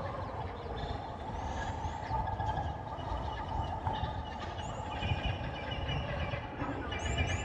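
Sci-fi alien-jungle ambience sound effect: a steady low rumble and hazy drone under a layer of short, high, rising chirps like unknown creatures calling. The chirps grow thicker in the second half.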